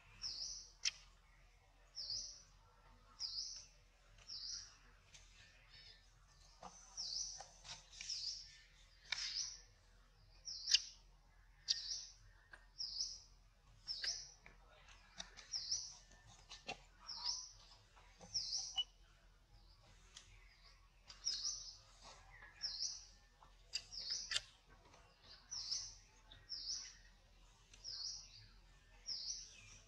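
A bird calling over and over: short, high chirps repeated roughly once a second, with a few faint clicks in between.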